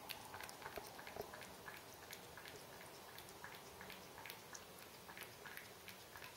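Cat eating wet food chunks in gravy from a bowl: faint, irregular wet smacking and chewing clicks, several a second.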